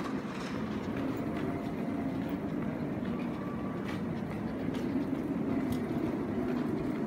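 Steady low mechanical hum of a railway station's background machinery, with a few faint scattered clicks and taps.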